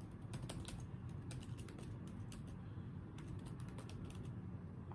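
Typing on a laptop keyboard: irregular keystrokes, at times several a second, over a low steady hum.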